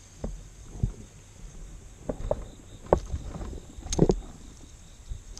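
Irregular knocks and bumps of rod, reel and hands against a plastic sit-on-top kayak while a small fish is reeled in, with a sharper clatter about four seconds in.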